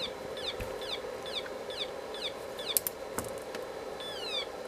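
A home-built transistor siren oscillator, heard through a signal tracer, gives a run of short high chirps, each falling in pitch, about three a second. After a couple of clicks, the chirps stretch into slower, longer falling sweeps as a larger timing capacitor is switched into the circuit.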